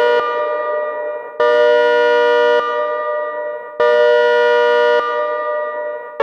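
Synthesized ACA Hurricane 130 dual-tone siren sounding its Pulse Attack signal. A two-note chord switches on sharply, holds for about a second, then drops in volume and fades away, and this repeats about every two and a half seconds, twice within these few seconds.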